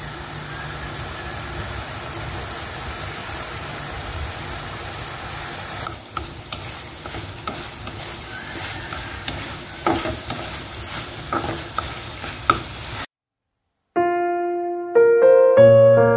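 Diced pork belly sizzling in hot oil in a pan; after about six seconds it is stirred with chopsticks, with scattered clicks and scrapes over the sizzle. The sizzling cuts off suddenly, and after a second's silence piano music begins.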